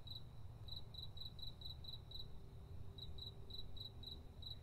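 Night-time cricket chirping: short, high, regular chirps about four a second in runs with brief pauses, over a low steady rumble.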